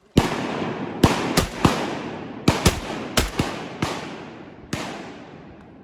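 A volley of about ten shotgun blasts from several hunters firing at ducks, some shots coming in quick pairs, spread over nearly five seconds. Each blast leaves a long echoing tail in the flooded timber.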